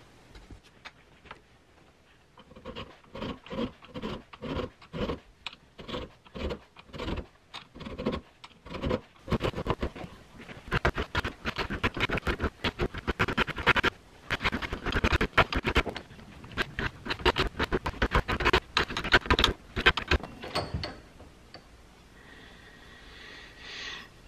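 Flat hand file rasping across the spine of a steel knife blade clamped in a vise, cutting jimping notches. The file starts with slow, even strokes, then goes to quicker, denser strokes and stops a few seconds before the end.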